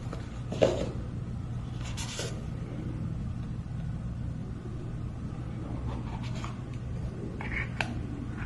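Packaging being handled: a sharp knock about half a second in, a short rustle around two seconds in, and a couple of light clicks near the end, over a steady low hum.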